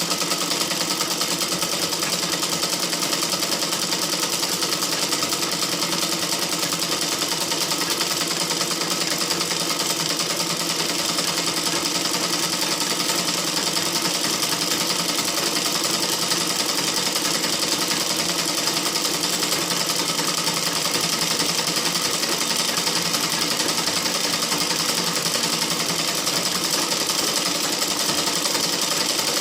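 Sewing machine running continuously at a steady speed, a fast even clatter of the needle mechanism without pauses.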